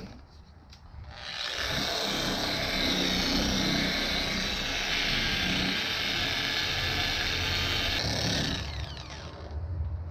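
Small 3-inch random orbital polisher fitted with a 2000-grit sanding disc, running and wet-sanding a plastic headlight lens. It starts about a second in, runs steadily, then is switched off near the end and spins down with a falling whine.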